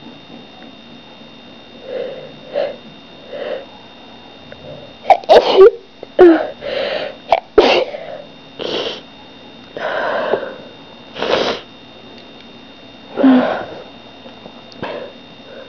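A person sneezing over and over in a fit: a few softer build-up sounds first, then a run of loud sneezes in quick succession, the loudest about five to seven seconds in.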